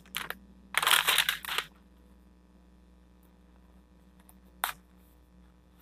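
Clear plastic wrapping being pulled off a phone box: a burst of crinkling for about a second near the start, then near quiet with one short tap a little before the end.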